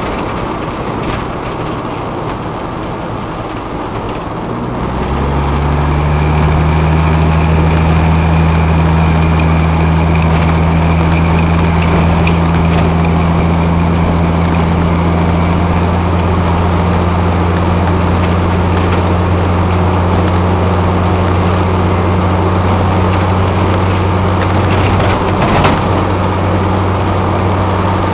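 Truck engine running steadily at road speed, with wind and road noise rushing past. A steady low engine hum comes up about five seconds in and holds even.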